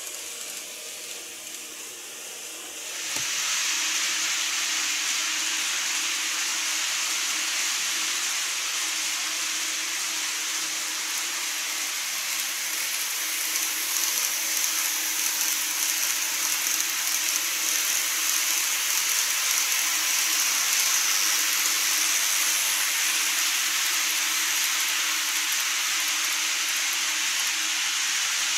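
Model electric train running on plastic track across a model truss bridge: a steady whirring hiss of wheels and motor that starts suddenly about three seconds in and swells a little as the train passes.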